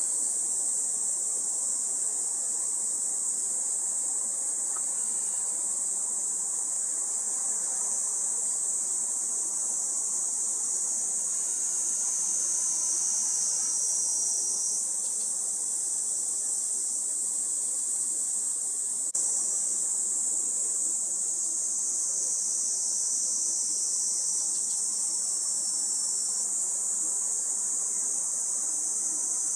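A steady, high-pitched drone of summer insects that does not let up, with small shifts in its pitch a couple of times.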